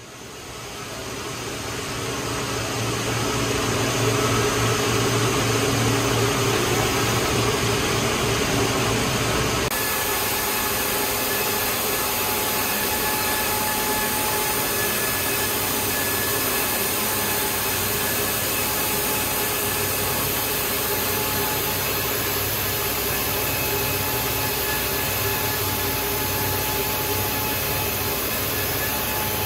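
Open-width single-jersey circular knitting machine running: a steady mechanical whir and hiss with faint steady tones, fading in over the first few seconds. The sound shifts abruptly about ten seconds in, its low hum dropping away and its hiss brightening.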